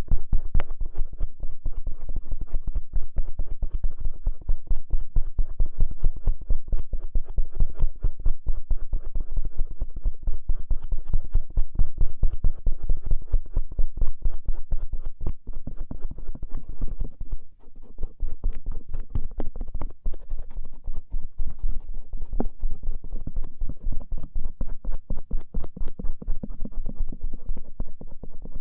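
Bamboo ear pick scraping and rubbing over the outer ear in rapid, close scratching strokes, with a brief pause about 17 seconds in.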